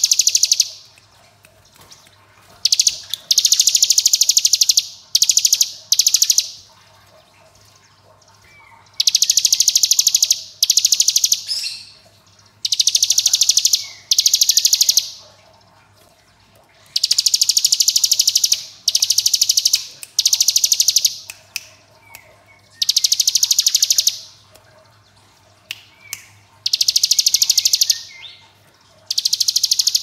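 Ciblek gunung (a mountain prinia) singing its 'ngebren' song: long, very rapid machine-gun-like trills of one to two seconds each, repeated about every two to three seconds with short pauses between.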